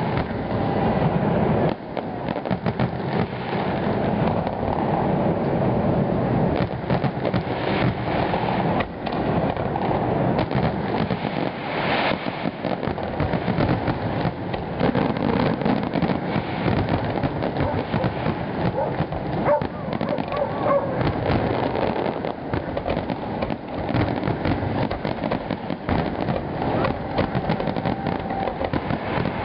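Aerial fireworks display: shell bursts, bangs and crackling following one another in a dense, unbroken run.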